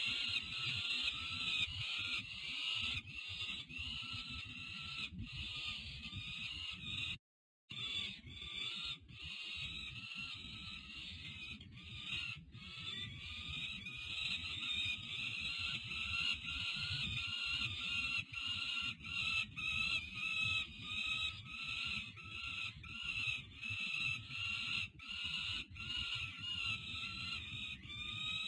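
Peregrine falcon chicks begging for food: a steady run of high, harsh repeated cries, about one or two a second, while the adult feeds them. The sound cuts out completely for a moment about seven seconds in.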